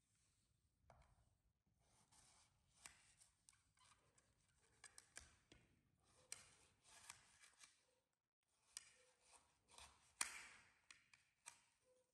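Kitchen knife cutting watermelon on a plate: faint, irregular crunches and scrapes of the blade through rind and flesh, with a louder cut about ten seconds in.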